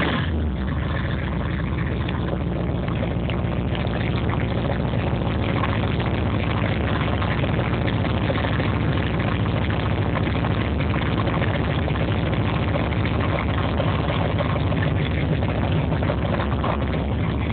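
Square-body Chevy shortbed pickup's stroker small-block V8 idling steadily with a deep exhaust rumble.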